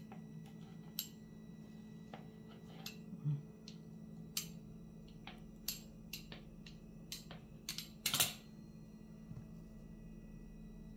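Metal pizza-cutter wheel clicking and tapping against a stone countertop as it cuts short slits in rolled dough: scattered, irregular light clicks, with a faint steady hum underneath.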